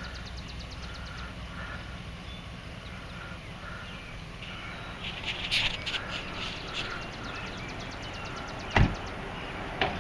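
Outdoor ambience: birds calling and insects trilling in quick runs over a low steady rumble, broken by a sharp thump near the end and a smaller one just after.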